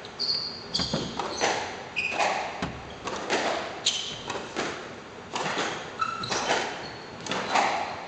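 Squash rally: a quick run of sharp knocks as racket strikes the ball and the ball hits the walls and floor, with short high squeaks of shoes on the wooden court floor.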